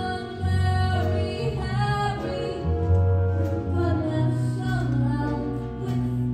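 Slow show-tune music with a woman singing long, held notes over the accompaniment.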